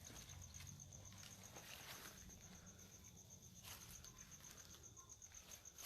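Faint insect chirping, most likely a cricket: one high pulse repeated steadily at about eight or nine pulses a second, over near-silent night air with a few soft ticks.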